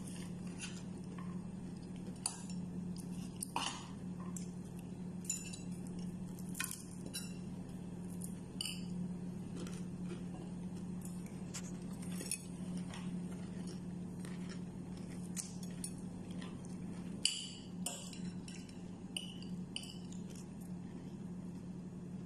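Eating by hand from a plate: irregular light clicks and clinks throughout, over a steady low hum.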